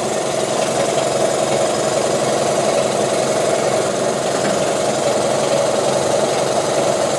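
Steady mechanical drone, like a motor running, holding at an even level with a constant hum in the mid range.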